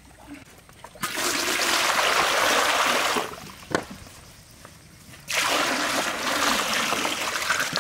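Water poured from above into a large empty metal wok, splashing loudly in two pours of about two seconds each, with a short pause and a single knock between them.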